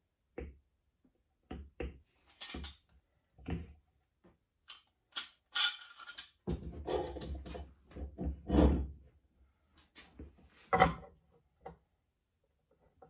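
Bar clamps and hardwood blocks being handled on a workbench as a glued inlay is clamped up: scattered knocks and clicks of wood and metal, a longer stretch of clamp sliding and rattling in the middle as it is fitted and tightened, and one sharp knock near the end.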